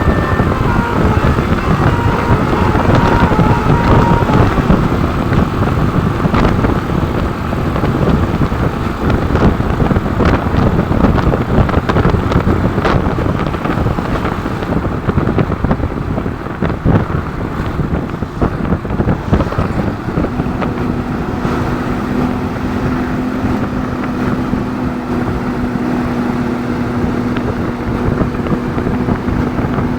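Road vehicle noise with wind buffeting the microphone. In the first few seconds a bus's telolet musical horn plays a few stepped notes, and a steady low hum comes in about two-thirds of the way through.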